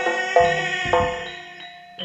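Javanese gamelan music for a barongan dance: bronze keyed metallophones ringing out a run of struck notes over a few drum strokes, thinning and fading in the second second.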